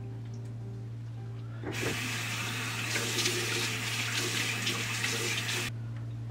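Bathroom sink tap running with water splashing as hands rinse a face over the basin. It comes on sharply about two seconds in and shuts off abruptly about four seconds later.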